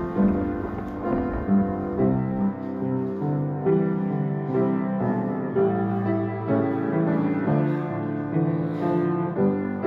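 Background music: piano playing a slow melody with chords, with low bowed strings beneath.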